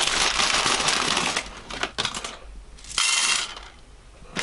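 Plastic bag of dry spiral pasta crinkling, with the pasta rattling inside as it is handled, in stretches with short quieter gaps.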